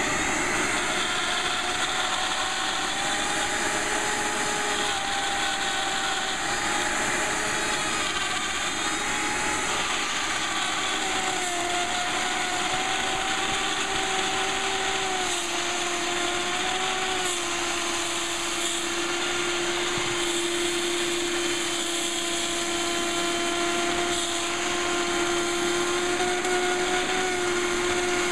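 Variable-speed hand router with a 1/4-inch bit running steadily as it cuts along the LED panel, its motor whine wavering slightly in pitch as it is pushed through the cut. A vacuum hose runs alongside at the cut, picking up the debris.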